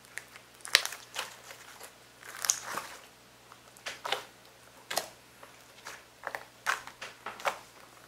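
Clear green slime being squeezed and kneaded by hand, giving irregular sticky clicks, pops and short crackles each time the fingers press in or pull away.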